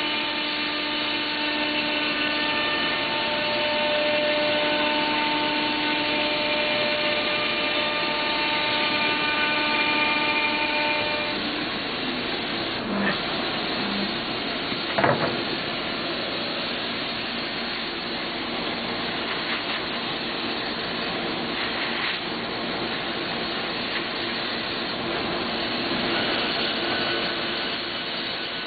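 Biesse Rover 336 CNC router spindle cutting a spiral groove into a panel, with a steady whine over rushing noise. About 11 seconds in the whine stops and the cut ends; a steady rushing noise carries on, with a few short knocks, the loudest about 15 seconds in.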